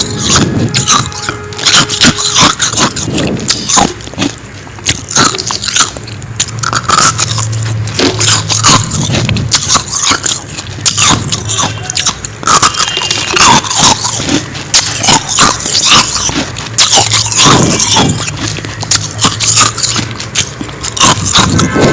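Biting and crunching into soft frost ice, with many sharp crunches in quick, irregular succession and chewing between bites.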